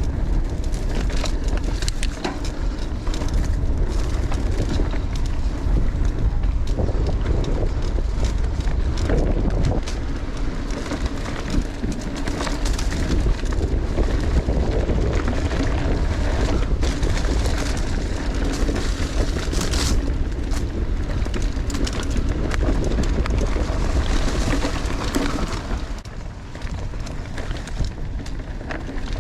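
A 2018 Giant Stance 2 full-suspension mountain bike ridden along a dirt trail: a steady low rumble of wind and tyre noise, with frequent rattles and knocks from the bike over rough ground.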